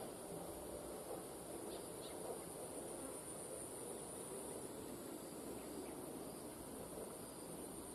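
A steady high-pitched insect drone over low background noise; the drone weakens about halfway through.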